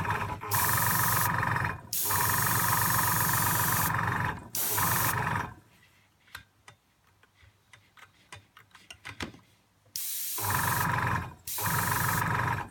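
Foxhunter AS186 airbrush compressor running with air hissing out, in about six bursts of one to two seconds that start and stop abruptly, with a pause of some four seconds in the middle.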